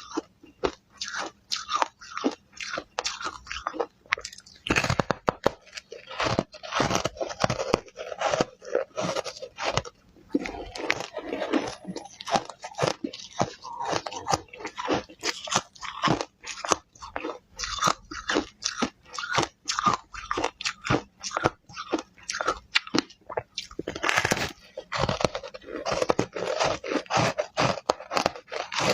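Ice being bitten and chewed close to the microphone: a steady run of sharp, crunchy cracks with a few louder bites.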